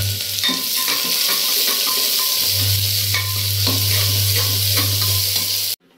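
Chopped onion sizzling in hot mustard oil in a pressure cooker, stirred with a metal slotted spoon that scrapes and clicks against the pot. The sound cuts off suddenly near the end.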